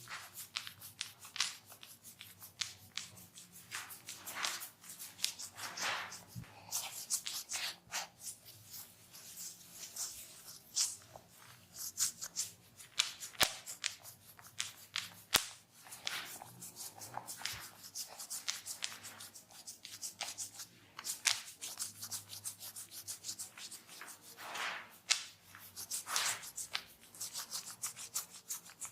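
Hands massaging a person's head and skin, a quick, irregular run of short rubbing strokes, with now and then a sharp click.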